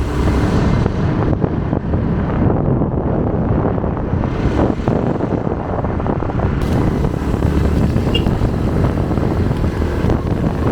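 A road vehicle underway: a steady engine rumble and road noise, with wind buffeting the microphone.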